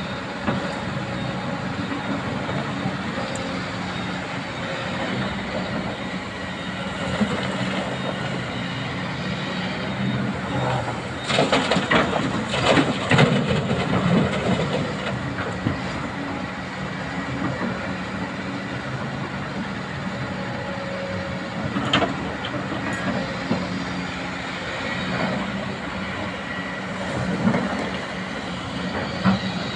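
Excavator's diesel engine running steadily, with a cluster of loud clanks about eleven to fourteen seconds in and another clank a little past twenty seconds: the machine at work.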